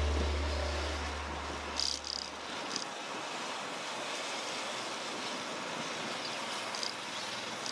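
Background music fading out over the first couple of seconds, leaving a steady rushing noise of wind and road from riding, with a few brief high chirps.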